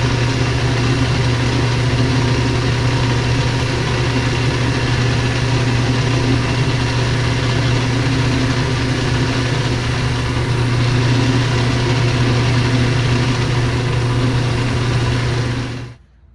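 Small three-jaw metal lathe running steadily, with a constant loud hum from its motor and gearing. The sound cuts off abruptly near the end.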